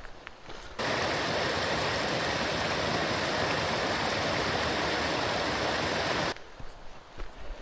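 Running water of a forest stream or small waterfall, a steady even rush that cuts in abruptly about a second in and cuts out just over a second before the end. Faint footsteps on the trail are heard before and after it.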